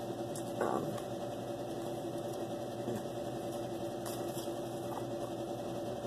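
A steady low electrical hum, with a few faint taps and rustles of a small cardboard tarot-card box being opened by hand about four to five seconds in.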